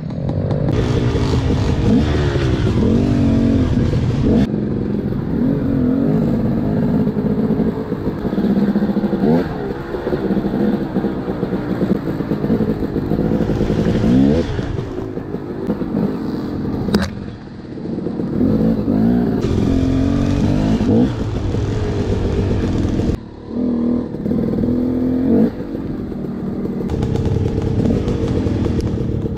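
Dirt bike engine on a trail ride, revving up and down over and over as the throttle opens and closes, with a couple of brief let-offs in the second half.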